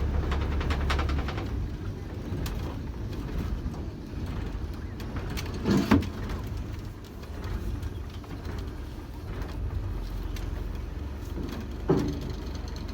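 River slow boat's large engine running steadily with a low drone, and two short knocks, one about halfway through and one near the end.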